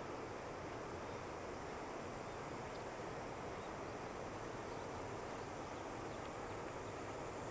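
Distant steady roar of the H3 rocket's LE-9 hydrogen-oxygen main engine firing on the test stand, carried over several kilometres as an even rushing noise with no breaks.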